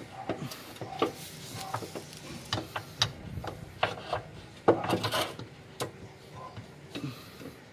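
Irregular metal clinks, knocks and scraping of bolts and the lower engine mount being fitted by hand under the car. The loudest cluster of knocks comes about five seconds in.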